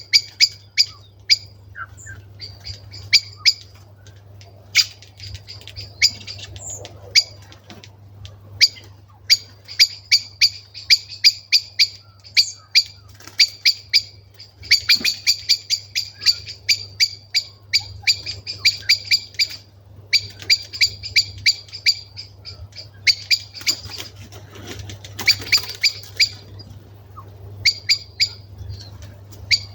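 Birds gathering at a winter roost, giving sharp, repeated tick calls in quick rattling series, several birds overlapping, with brief pauses between bouts.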